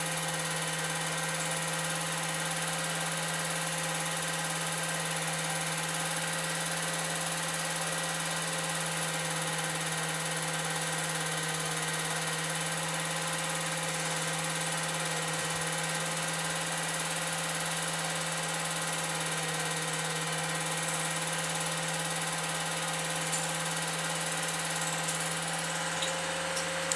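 Steady whir and hum of an 8mm film projector running, with hiss and no change in pitch or level.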